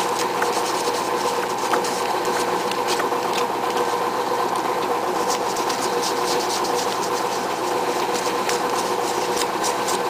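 Steady mechanical hum of a running machine, with faint scrapes and clicks of plastic hair dryer parts being handled.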